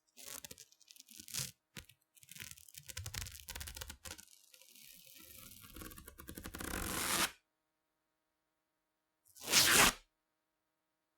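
Duct tape pulled off the roll: a long, uneven, crackling rip in stuttering spurts that builds louder, stops about seven seconds in, then one short, loud rip a couple of seconds later.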